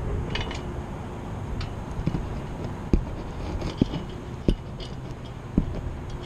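Steel antenna-mount hardware clinking as bolts, nuts and clamp parts are handled and fitted by hand: several separate sharp metal clicks spread over a few seconds, over a steady low rumble.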